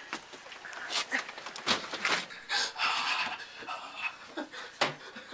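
A person panting and breathing heavily while carrying someone, with clothing rustling close to the microphone and a couple of knocks.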